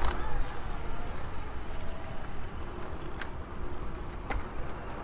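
Riding noise from a VanMoof S3 electric bike in motion: steady low wind rumble on the microphone and tyres rolling, with a few sharp clicks in the second half.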